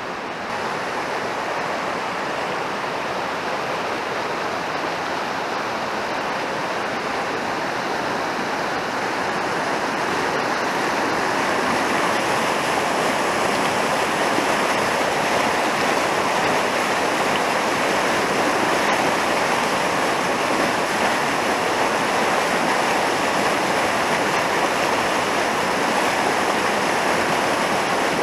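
Fast white-water mountain river rushing over rocks as a steady wash of water noise. It grows louder over the first ten seconds or so, then holds steady.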